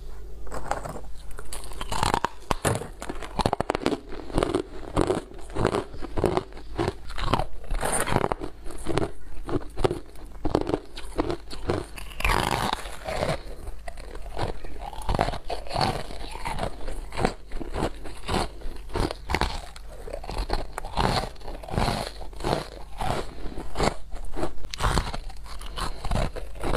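Close-miked biting and chewing of hard freezer frost chunks: a steady run of crisp, chalky crunches.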